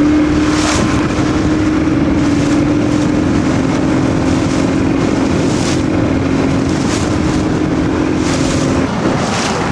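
Motorboat engine running at a steady note, with wind and water rushing past and repeated splashes. The steady engine note breaks off about nine seconds in.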